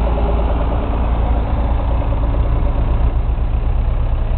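Tractor engine idling, a steady low rumble.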